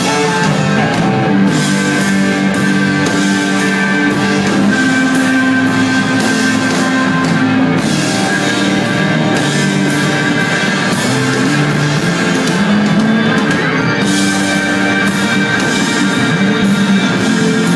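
Live blues-rock band playing loud: a 1959 Gibson Les Paul Standard electric guitar through a Bogner Ecstasy amp leads over keyboards and drums, with the guitar holding long sustained notes.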